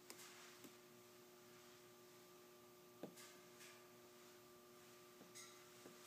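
Near silence: a faint steady hum of a few held tones, with a few faint ticks scattered through it.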